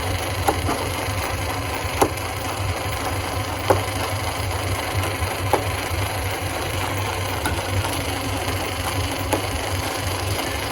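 Stone crusher running steadily with a low hum, with sharp cracks of rock breaking at irregular intervals, the loudest about two seconds in and again about three and a half seconds in.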